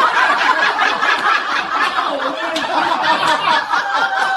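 Sustained human laughter.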